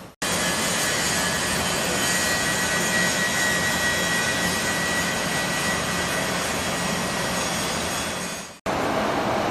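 Metal-cutting machine running steadily, most likely a horizontal boring machine at work on a bearing housing, an even whirring noise with a faint high whine. It cuts off abruptly twice.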